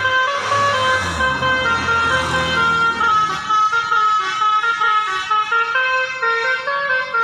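Telolet multi-tone bus horn of the Basuri type, on a minibus, playing a tune in quick stepped notes. A low rumble runs under it for roughly the first three seconds.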